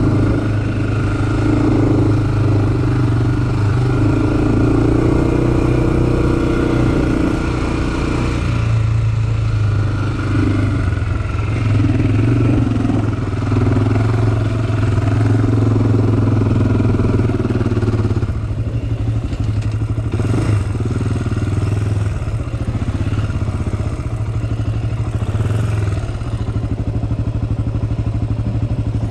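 Honda 400EX-type sport quad's single-cylinder four-stroke engine running on a trail ride, its note rising and falling as the throttle is worked, with the machine rattling over the rough ground.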